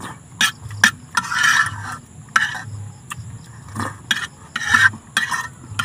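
Metal fork and spoon scraping and clinking against a frying pan as leftover rice and sauce are gathered up: two sharp clinks near the start, then a run of short scrapes, one longer about a second and a half in.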